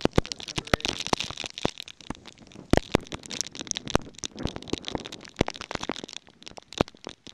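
Storm rain and hail pelting the camera close to the microphone: dense, irregular sharp cracks and pops over a hiss of wind-driven rain, the hiss heaviest in the first two seconds.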